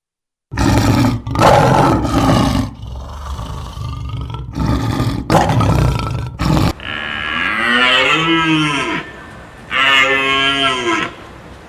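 Cattle mooing: a run of low, rough calls, then two long moos whose pitch rises and falls, one starting about seven seconds in and one about ten seconds in.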